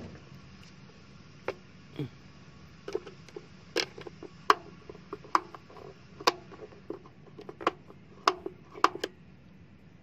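Irregular sharp clicks and knocks, about two a second from a second and a half in until about nine seconds, as the water heater's cover is fitted back on by hand.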